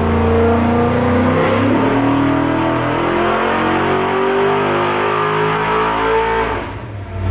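Ford small-block V8 running under load on an engine dyno: it holds steady for about a second and a half, then the revs climb steadily for about five seconds in a dyno pull and fall off near the end.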